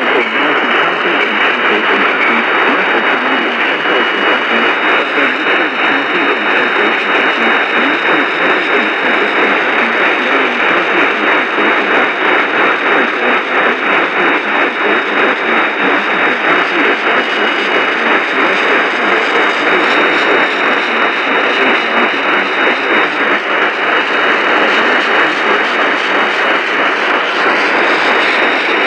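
AM radio receiver hissing with heavy static, a steady band-limited rush with a thin high whistle running through it.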